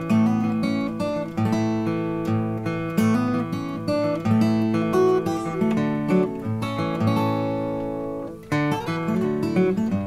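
Instrumental end-credit music, an acoustic guitar piece with strummed chords and picked notes, dipping briefly a little past eight seconds in before carrying on.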